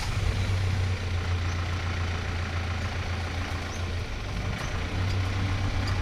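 Vehicle engine running at idle: a steady low hum with a rough, even noise over it, just after the engine has been started.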